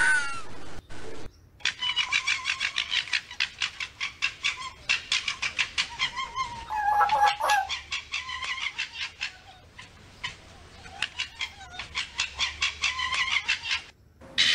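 A fox calling in a rapid chatter: a long run of quick, sharp clucking pulses, several a second, with a brief whining note about halfway through.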